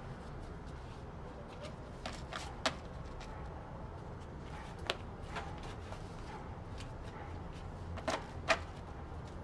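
Loose paper banknotes handled in gloved hands: soft rustling with a few crisp paper snaps, three about two to three seconds in, one about five seconds in and two near the end. A low steady hum runs underneath.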